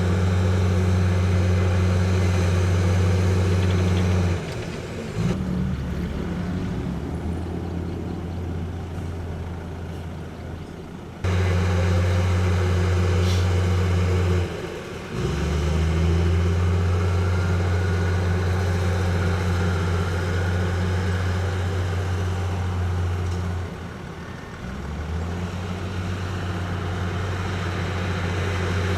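Heavy diesel construction machinery running with a steady low drone. It drops back a few times and surges up again, sometimes abruptly, as the throttle or load changes.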